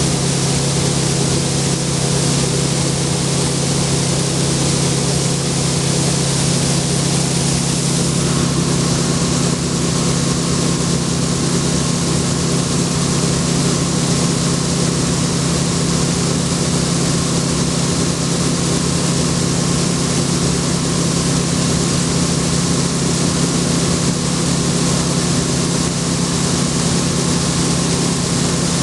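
International 1480 axial-flow combine running steadily while unloading corn: a steady engine drone under a rushing hiss of grain pouring from the unloading auger into the truck box.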